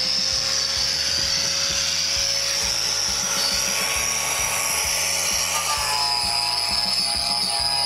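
Power wire wheel running at speed, scrubbing rust and scale off the bare steel of an old car's front inner fender: a steady high whine over a gritty hiss.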